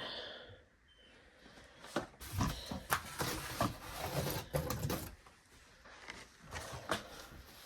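A seedling heat mat being handled: rustling with scattered clicks and knocks, starting about two seconds in and easing off after about five seconds, with one more click near the end.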